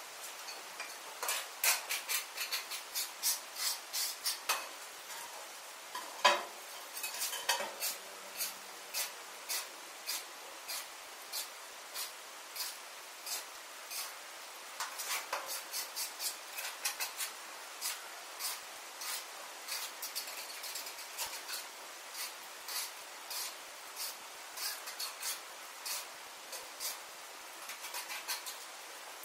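A mason's steel trowel clinking and scraping again and again as a sand-cement mortar bed is spread and levelled for floor tiles, with the sharpest knock about six seconds in.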